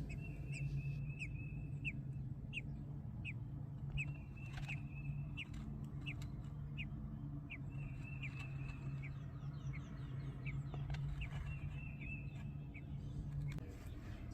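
Songbirds chirping outdoors: a run of short, high chirps every half second or so, with a few longer high trills between them. Underneath runs a low steady hum that stops near the end.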